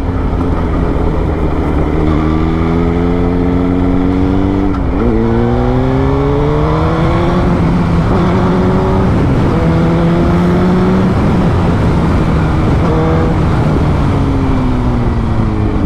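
Suzuki GSX-R1000's inline-four engine under acceleration while riding. Its pitch climbs, drops sharply at a gear change about five seconds in, climbs again and holds, then falls away as the throttle is eased near the end.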